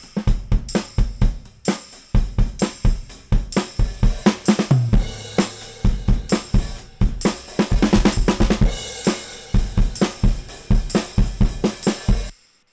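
Drum kit playing a steady groove, run through analogue saturation in a wideband all-wheel-drive mode that adds chunky distortion across the whole range. It stops abruptly near the end.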